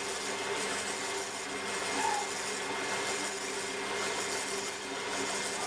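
Potter's wheel running with a steady hum while wooden ribs rub against the wet clay wall of a thrown vase, pressed together from inside and outside to stretch the clay outward.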